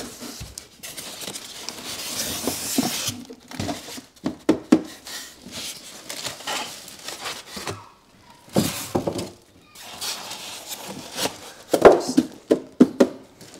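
Unpacking noise: styrofoam packing blocks and cardboard rubbing and scraping against a plastic-wrapped air-conditioner unit as it is lifted out of its box, with rustling of the plastic wrap and several knocks as the parts are handled.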